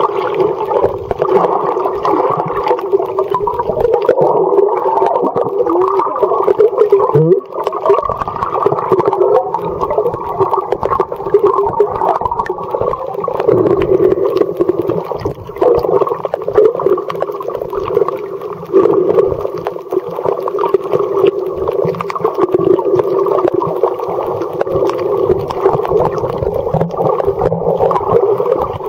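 Underwater noise picked up by a submerged camera: a steady, muffled rushing of water, with little in the high range.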